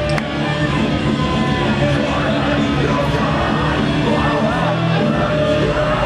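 Heavy metal band playing live: electric guitars, bass and drums in a dense, unbroken wall of sound.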